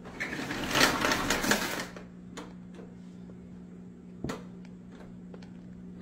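Canister vacuum cleaner's cord rewind reeling in the power cord: a fast rattling clatter for about two seconds as the cord is pulled back into the machine. A single knock follows a couple of seconds later.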